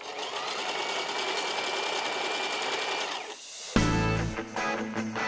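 Brother domestic sewing machine running steadily as it stitches fabric for about three seconds, then stopping. Guitar-led background music comes in near the end.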